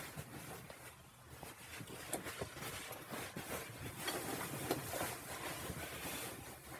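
Two dogs play-fighting: irregular scuffling with many scattered clicks and knocks from their paws on the concrete floor and the beanbag.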